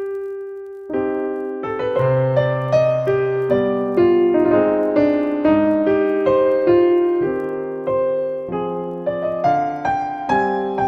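Background piano music: a gentle melody with chords, one note then a short pause before the playing runs on at about two notes a second.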